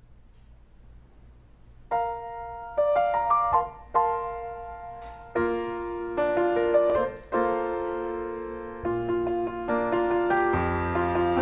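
Grand piano played solo, starting about two seconds in with struck chords that ring and fade. The playing grows fuller with low bass notes near the end.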